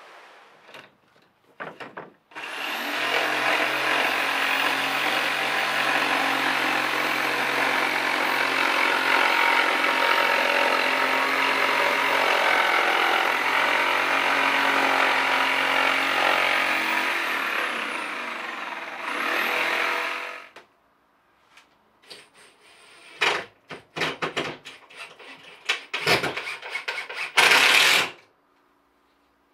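A power tool runs steadily for about eighteen seconds with a constant hum, winds down, runs briefly again and stops. Then come a series of knocks and clatters.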